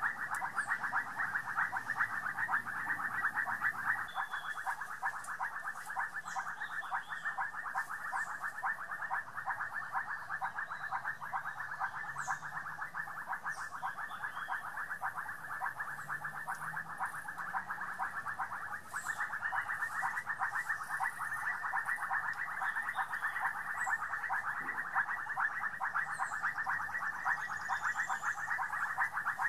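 A steady, dense chorus of fast trilling calls from many small animals, with faint short chirps now and then above it.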